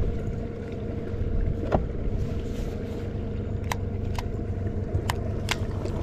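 Electric trolling motor humming steadily with a constant whine. A few sharp clicks sound over it.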